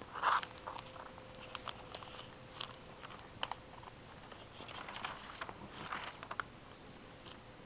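Newspaper coupon-insert pages rustling and crackling as they are handled and turned: a short crinkle near the start, scattered small ticks, then a longer rustle of pages turning about five to six seconds in. A faint steady hum runs underneath.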